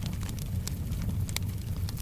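Wood fire crackling, with sharp pops several times a second over a steady low rumble of the flames.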